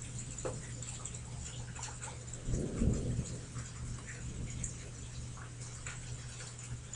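A brief low rumble of distant thunder about two and a half seconds in, over a faint steady low hum.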